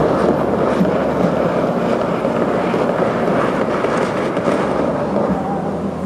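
Bellagio fountain water jets roar as they shoot up and crash back into the lake: a loud, steady rushing noise that drowns out the show's music, which comes back through near the end.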